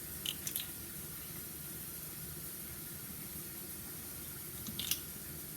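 Steady low hiss from a pot of seasoned water heating on the stove for rice, with a few faint light clicks, twice near the start and once near the end.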